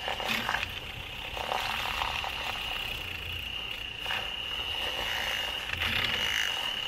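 Handheld milk frother whirring in a saucepan of warm almond milk, frothing it, with a steady high-pitched whine.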